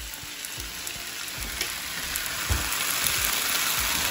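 Diced potatoes frying in olive oil in a skillet: a steady sizzle that grows gradually louder, with a few soft low thumps.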